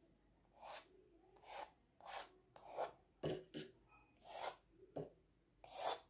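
A painting tool scratching short strokes of gold acrylic paint onto a painted sheet, about nine quick rasping strokes, a few starting with a light tap.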